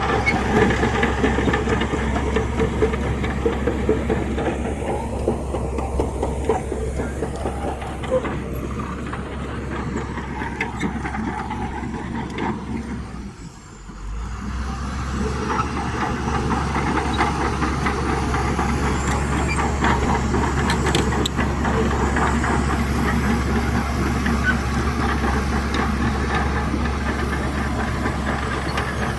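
Heavy diesel earthmoving machinery running steadily under load, with scattered clicks and clanks over a steady low hum. The sound briefly drops away about halfway through, then comes back just as loud.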